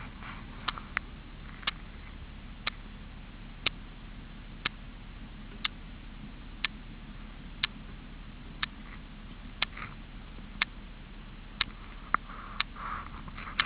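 A sharp tick about once a second, keeping a steady rhythm, over a low steady background with a few faint chirps.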